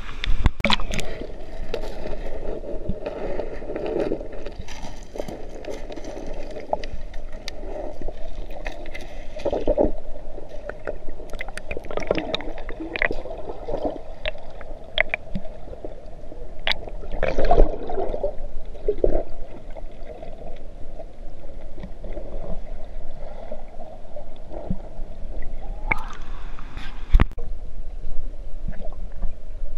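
Muffled underwater sound heard through a submerged camera: a dull rush of moving water with scattered clicks and bubbling, after a splash about a second in as it goes under.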